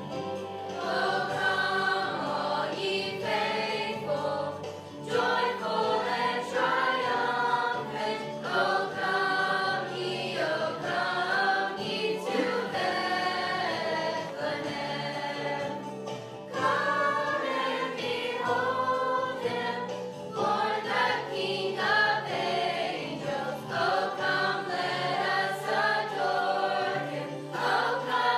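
Youth choir of mixed young voices singing a song together, in phrases a few seconds long with short breaks between them.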